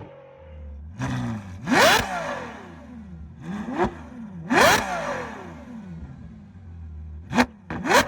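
Ferrari 812 Superfast's naturally aspirated V12, fitted with a Tneer aftermarket exhaust, idling and being blipped about five times. Each rev shoots up in pitch and falls straight back.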